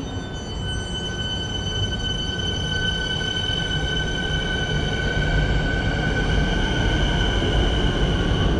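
Electric suburban train moving past close by, a rumble of wheels on rails under a steady high-pitched whine, growing louder throughout.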